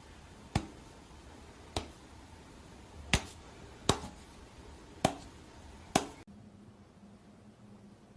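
Six sharp clicks at uneven intervals over a low background, then an abrupt change to a faint steady hum.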